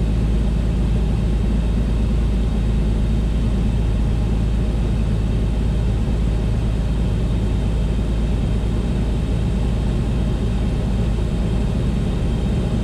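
Beechcraft A36 Bonanza heard from the cockpit, its engine at idle with the propeller pulled back to low rpm in a power-off glide simulating an engine failure: a steady low drone of engine and airflow.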